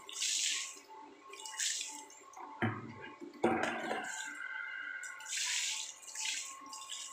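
Water thrown from a small plastic pail splashing against a car's side panel and wheel and onto the concrete floor, in several short splashes. About a third of the way in come two louder knocks and a slosh of water, then two more splashes near the end.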